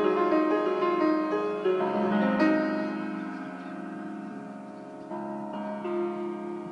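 Solo piano playing a slow classical passage: held chords ringing and dying away, with a few new notes struck, growing quieter.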